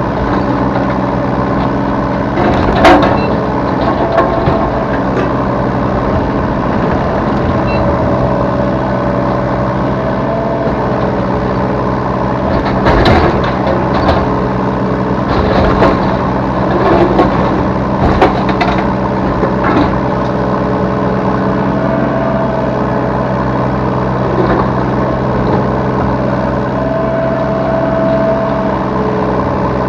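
Yanmar B3 Sigma 3-tonne mini excavator's diesel engine running steadily under the work, with a hydraulic whine that comes and goes as the arm moves. Several sharp clanks and knocks, most of them clustered about halfway through.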